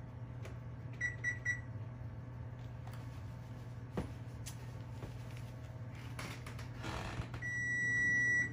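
Oven control panel beeper on a Frigidaire range: three quick keypad beeps about a second in as a 20-minute timer is set. Near the end comes one long steady beep as the timer runs out. A steady low hum sits underneath.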